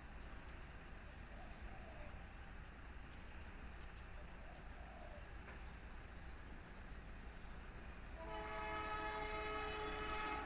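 Horn of a CC 206 diesel locomotive sounding one long chord-like blast, starting about eight seconds in, after several seconds of faint background.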